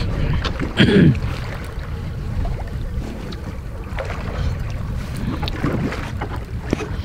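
Steady low rumble of wind on the microphone and the boat on open water. About a second in there is one short falling cry.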